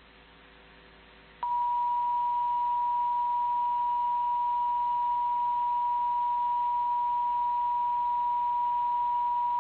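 Emergency Alert System attention tone: a single steady high-pitched tone near 1 kHz. It comes on sharply about a second and a half in and holds without a break, signalling the start of a severe thunderstorm warning. Before it there is only a faint low hum.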